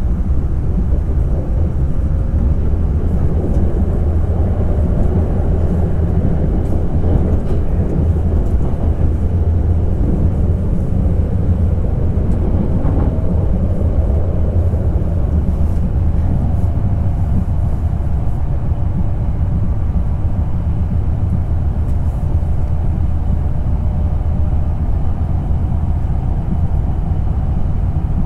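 Hokkaido Shinkansen train running at speed, heard from inside the passenger cabin: a steady low rumble of wheels and running gear with a faint steady whine over it.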